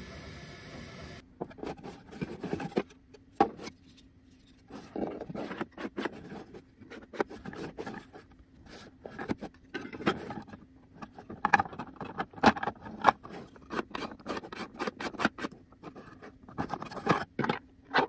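Briefly a 3D printer running with a steady hum, then irregular clicks, knocks and scrapes of hard 3D-printed plastic parts being handled and fitted together on a wooden table.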